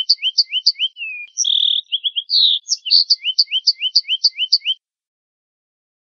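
A finch singing a rapid run of paired notes, a high chirp with a lower down-slurred whistle, about four a second. It breaks about a second in for a buzzy note and a falling sweep, then the run starts again and stops abruptly a little before the end.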